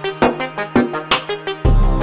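Background music with a quick, steady beat of pitched notes. About one and a half seconds in, a deep bass comes in and the music gets louder.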